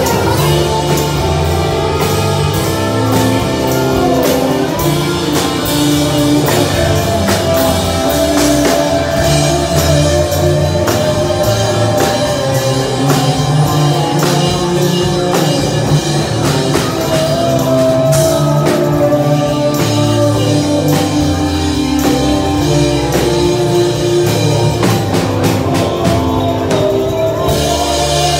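Live rock band playing loudly and steadily on drum kit and guitar.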